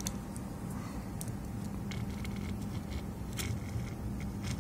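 Soldering iron worked over the flux-covered pads where the PS4 Slim's southbridge chip was removed, cleaning them. A few faint ticks and crackles sound over a steady low electrical hum.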